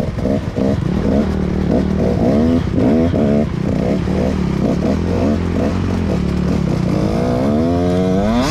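Dirt bike engine revving in short repeated blips, then winding up in one long rising rev near the end, over a steady low engine drone.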